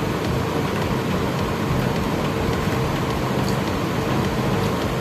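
Steady mechanical hum with an even rushing noise, like a running fan or air-conditioning unit, with a few faint clicks.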